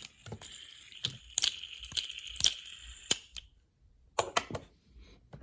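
Plastic toy road roller being handled: scattered sharp clicks and light rattles, with a faint high steady tone under the first three seconds.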